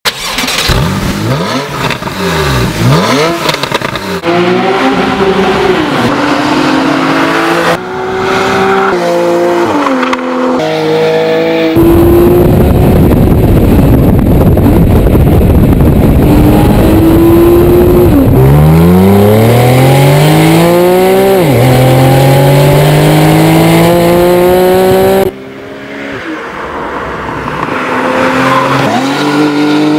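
Porsche 911 (991) Carrera S's 3.8-litre flat-six revving and accelerating hard, its pitch climbing through the gears and dropping back at each upshift. The audio is several separate takes joined by abrupt cuts, and a loud rushing noise covers the middle stretch.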